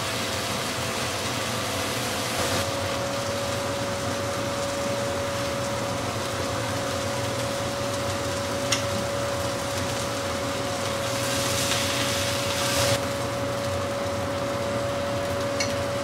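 Chicken breasts sizzling in oil on a griddle pan over a gas burner: a steady hiss with a steady hum underneath. The sizzle swells for a couple of seconds past the middle, and a few light clicks of a utensil on the pan come through.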